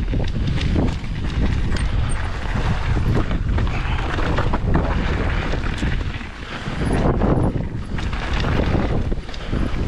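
Wind buffeting the microphone of a mountain bike descending a trail, with the bike knocking and rattling over rough ground and a brief lull about six seconds in.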